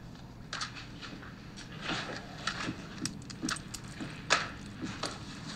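Irregular light clinks, taps and scrapes of glass votive candle holders and small objects being handled and set down, the loudest about four seconds in.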